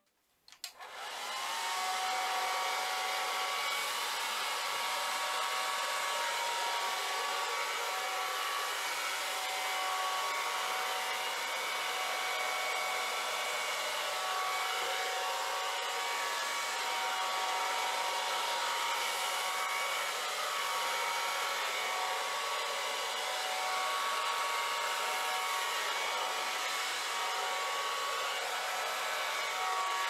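Handheld hair dryer running steadily, a rushing blast of air with a steady motor whine, switching on about half a second in.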